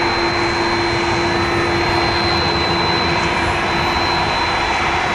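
Twin General Electric CF6 turbofan engines of a Boeing 767-300ER at climb power just after takeoff: a steady jet roar with a steady high whine.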